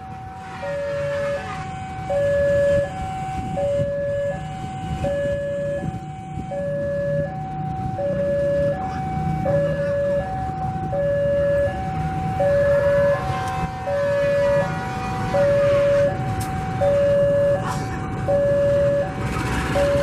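Electronic railway crossing alarm sounding a steady alternating two-tone signal, low then high, about one cycle every second and a half, warning that a train is approaching. Underneath, the diesel-electric locomotive CC 203's engine runs with a low rumble as it rolls slowly past.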